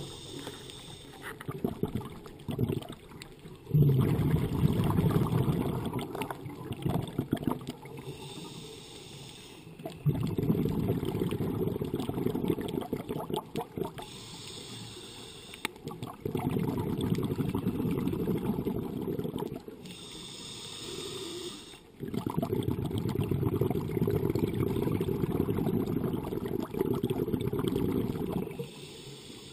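Scuba diver breathing through a regulator underwater, about four full breaths: a brief hiss on each inhale, then a longer, louder rumble of exhaled bubbles.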